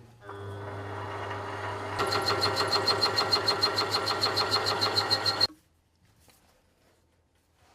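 A small electric motor running with a steady hum. About two seconds in it grows louder with a fast, regular pulsing, then it cuts off suddenly.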